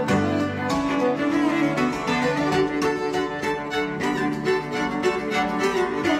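Background music played on bowed string instruments, a run of held notes that changes pitch every fraction of a second.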